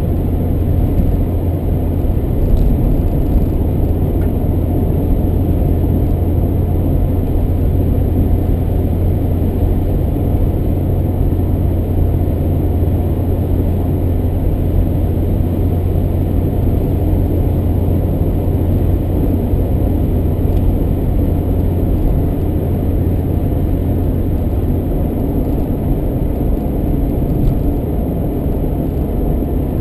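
A car driving at open-road speed, heard from inside the cabin: a steady low drone of engine and tyre noise on the sealed road.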